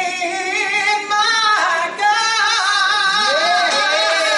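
A woman singing solo, holding long notes with vibrato and sliding between pitches.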